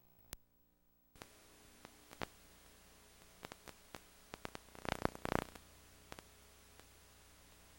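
Faint steady hiss and static of videotape playback that cuts in about a second in, with scattered sharp clicks and a short burst of crackling about five seconds in.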